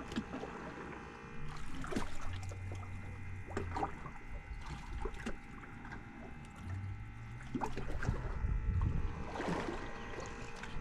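Fishing boat sitting on the water: scattered knocks and clicks on board over water moving against the hull, with a low rumble that comes and goes.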